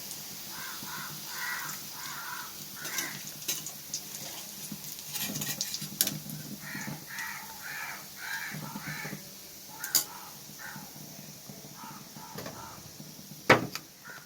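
A crow cawing in several runs of short, repeated calls, with a few sharp knocks in between, the loudest near the end.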